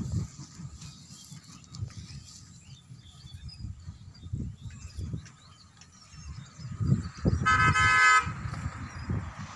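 A vehicle horn honks once, a single steady note lasting under a second, about seven and a half seconds in, over a low irregular rumbling.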